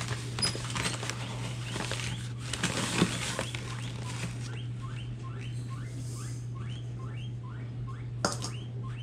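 Granulated sugar being scooped and poured into a mixing bowl, a gritty rustling with small ticks. About halfway through it gives way to a run of short, evenly spaced scraping strokes, about three a second.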